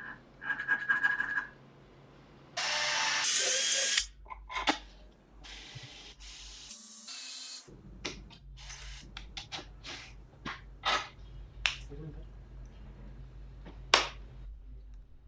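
A cordless drill running in short bursts while winding steel wire around a threaded rod into a coil spring, with many sharp metal clicks and scrapes from the wire and tools.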